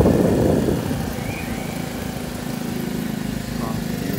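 Small motorcycle engine running steadily at low speed while riding, briefly louder in the first half second.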